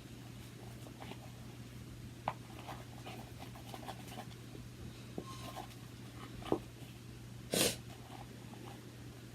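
Faint clicks, taps and soft squishes of slime being worked in a bowl with a spoon, over a steady low hum, with one brief louder noisy burst about three-quarters of the way through.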